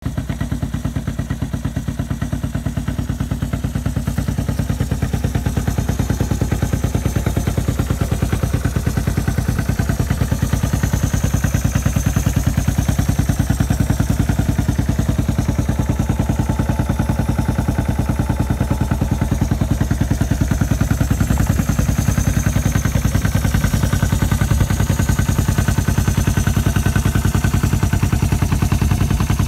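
1971 Honda CB450's air-cooled double-overhead-cam parallel-twin engine idling steadily through its twin chrome exhausts.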